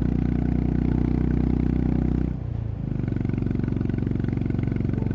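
Honda CB350RS's single-cylinder engine and exhaust running steadily under way. Its sound drops briefly about two and a half seconds in, then it runs on steadily at lower revs.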